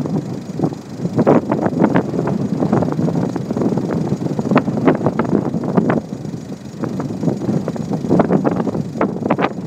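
Very strong wind buffeting a phone's microphone in gusts, with crackling pops, easing briefly about half a second in and again around six to seven seconds in.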